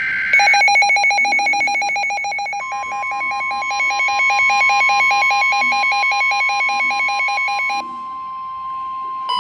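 Emergency Alert System tornado-warning alert tones. A short data burst ends just after the start, then a rapidly pulsing electronic alarm tone. A steady warning tone joins it under three seconds in, and the pulsing stops about two seconds before the end, leaving the steady tone alone.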